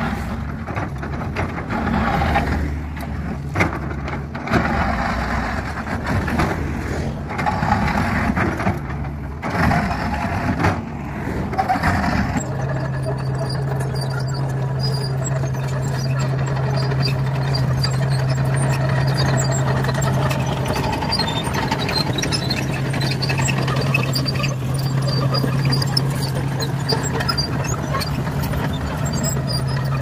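Caterpillar excavator scarifying an old DBST asphalt road surface: the bucket scrapes and cracks the bitumen layer in irregular bursts of knocks and grinding over the diesel engine. About twelve seconds in it changes to a Komatsu D61PX crawler dozer, its diesel engine running with a steady low hum while the tracks clink and crunch over the broken asphalt slabs.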